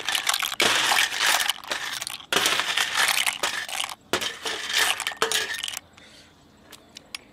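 Cooked blood cockles in their shells clattering and clinking as they are scooped with a metal spoon off a steel tray and dropped into a clay mortar, in several bursts; it stops about six seconds in.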